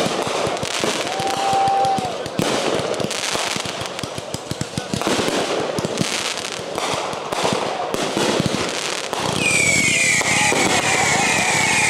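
Fireworks display crackling and popping in dense, rapid volleys, with people's voices calling out over it. About three-quarters through, a high whistle falling in pitch joins in.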